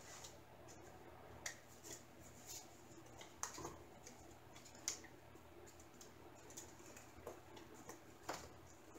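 Near silence with a few faint, scattered clicks and taps of a picture frame's edge being handled and pressed onto a diamond painting canvas.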